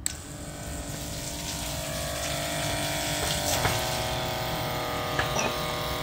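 Electric boiler-feed water pump switched on and running steadily with a motor hum, pumping water from a bucket into a steam boiler.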